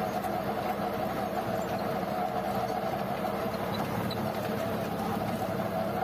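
Tractor running with its PTO shaft turning a rotavator's gearbox at about 540 rpm: a steady mechanical drone with a held whine in it.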